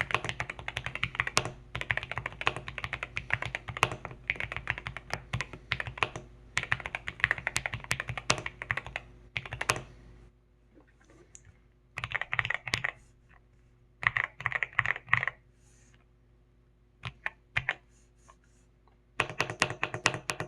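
Typing on an Akko MU01 mechanical keyboard with rosewood keycaps and Akko Rosewood switches. The key clicks are fast and continuous for about the first half, then come in short bursts with pauses between them.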